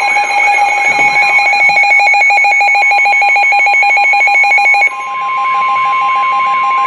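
NOAA Weather Radio alert sounding ahead of a new severe thunderstorm warning: a rapidly pulsing electronic beep for about five seconds, then a steady single high tone, the 1050 Hz warning alarm tone.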